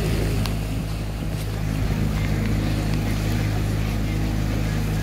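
Outboard motor of a Sun Tracker pontoon boat running at steady cruising speed: an even, low drone with a hiss of wind and water over it.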